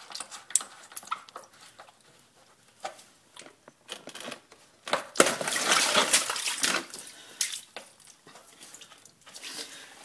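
Hands working at the drain valve at the base of an electric water heater, checking it is fully closed: scattered light clicks, then about two seconds of loud rubbing noise about five seconds in.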